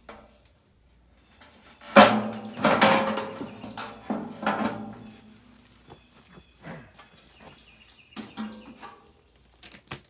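Sheet-metal furnace blower housing and squirrel-cage wheel being knocked and handled as the blower motor is worked free: a run of loud metallic bangs starting about two seconds in, the housing ringing after each, then lighter clanks and rattles.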